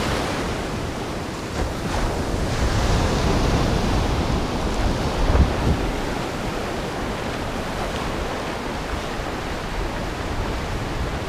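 Surf breaking and washing up the shore in a steady rushing wash, with wind buffeting the microphone in uneven low gusts and a couple of brief knocks about halfway through.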